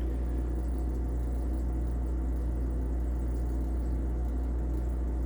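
Refrigerator running with a steady, even low hum that does not change.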